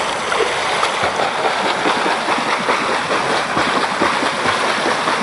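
Steady splashing of a swimmer's flutter kick as she kicks along on a kickboard.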